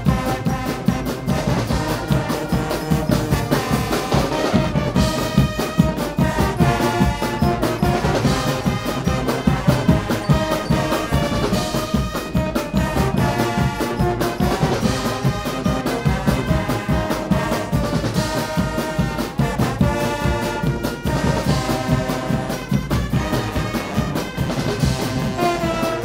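Guggenmusik brass band playing live: trombones, trumpets and sousaphones blaring a tune over a steady beat of bass drum, snare and cymbals.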